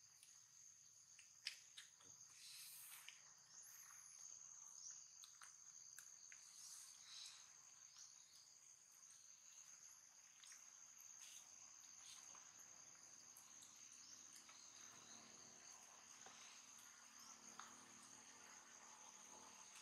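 Faint, steady high-pitched insect chorus, with scattered soft clicks and rustles.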